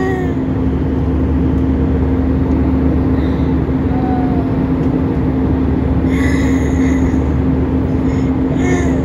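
Jet airliner cabin noise in cruise: the steady rush of engines and airflow with a constant low hum underneath.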